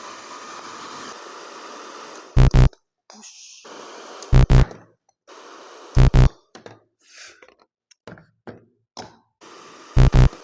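Hair dryer blowing air, steady for about two seconds and then in shorter spurts. A loud, deep double thump from a music beat recurs about every two seconds over it.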